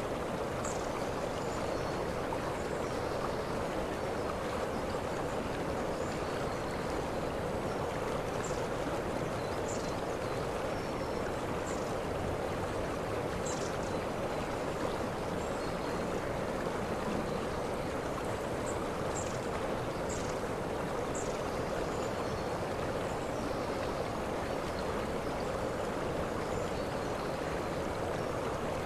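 Waterfall rushing steadily, with short high-pitched notes at irregular intervals every few seconds.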